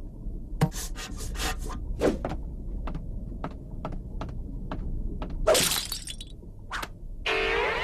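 Cartoon sound effects: a string of sharp knocks and clicks, a noisy crash about five and a half seconds in, and a pitched sound falling in pitch near the end.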